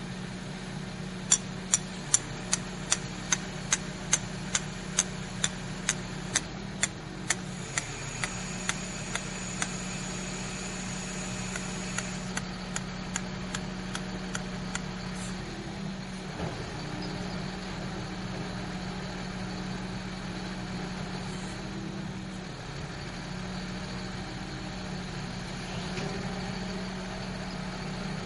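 Truck-mounted crane's engine running steadily with a low hum. Over it come sharp, evenly spaced clicks, about two a second, that fade away over the first fifteen seconds or so.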